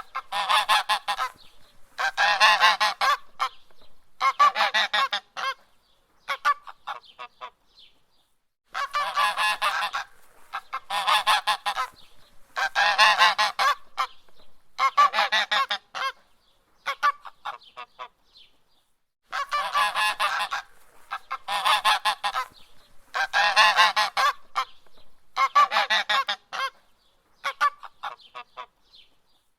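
Goose honking in runs of rapid, harsh honks, each run lasting about a second, repeating steadily with two longer pauses.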